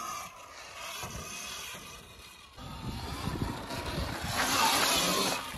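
Sur-Ron electric dirt bike riding past on a dirt trail: a thin electric-motor whine with the rush of tyres over dirt and brush and a rough wind rumble, swelling to its loudest about four to five seconds in as the bike passes close.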